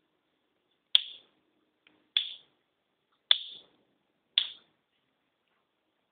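Four sharp finger snaps, about a second apart.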